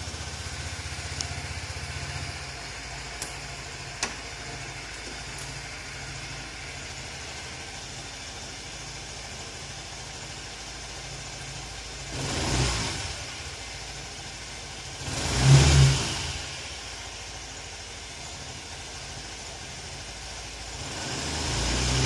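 Honda Lead 125 scooter's single-cylinder four-stroke engine idling steadily just after starting. It is blipped with the throttle twice about halfway through, and the revs climb again near the end.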